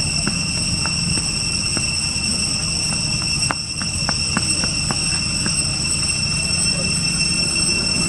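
Steady, high-pitched insect chorus, several even tones held without a break, over a low steady hum. A string of faint clicks comes a little past the middle.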